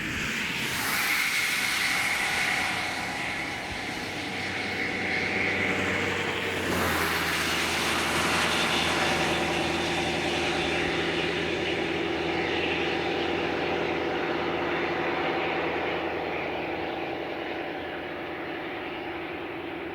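Road traffic: motor vehicles passing with a steady engine hum under a rush of road noise, which swells about a second in and again around seven seconds.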